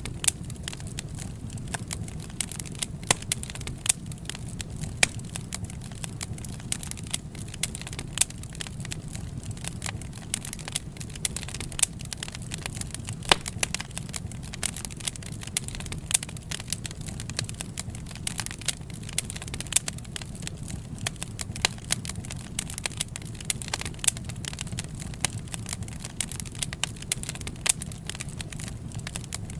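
Wood fire burning: frequent, irregular sharp crackles and pops from the burning logs over a steady low rumble of the flames.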